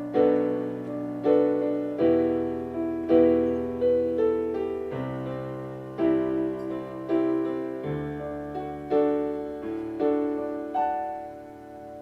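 Piano playing a slow instrumental passage between sung lines of a ballad: chords struck about once a second, each left to ring and fade, quieting near the end.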